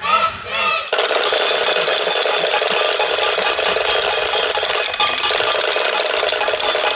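Easter clappers (Klappern, wooden rattles) cranked and shaken in a fast, continuous clatter, starting about a second in and stopping just before the end. The rattling is the Easter custom that stands in for the church bells, which stay silent over Easter.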